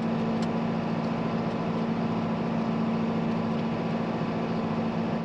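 John Deere 4755 tractor's six-cylinder diesel engine running at a steady speed, heard inside the cab as an even, unchanging drone.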